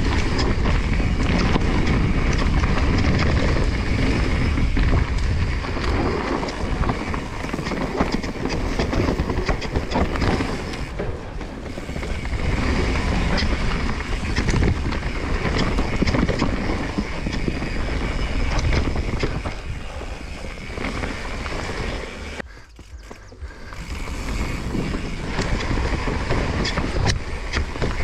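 Specialized Stumpjumper Evo mountain bike descending a rough dirt downhill trail: wind buffets the camera microphone while tyres rumble and the frame and chain rattle over roots and ruts, with many short knocks. Near the end it goes quieter for about a second.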